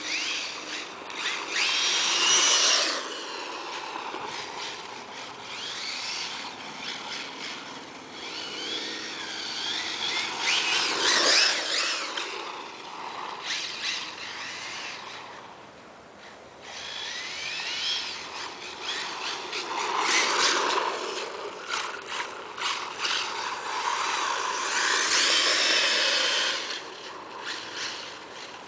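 Radio-controlled buggy's Neu 2650kv brushless electric motor whining in repeated bursts of throttle, its pitch rising as it accelerates. Several louder hissing swells come from the tyres sliding on asphalt as the buggy drifts.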